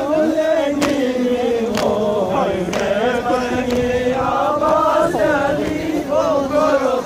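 A group of men chanting a mourning lament (nauha) together, with a sharp beat about once a second from hands striking chests (matam).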